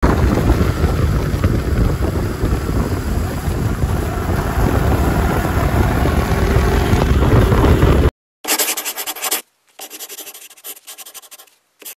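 Loud wind rumble on a riding microphone, dense and heaviest in the low end, that cuts off suddenly about eight seconds in. It is followed by a few short crackly bursts of a thinner, brighter sound.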